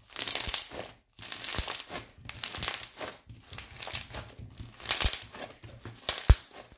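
Blue foam-bead slime (floam) being squeezed and kneaded by hand: repeated wet, crackling squishes about once a second as the beads and trapped air are pressed, with one sharper, louder burst near the end.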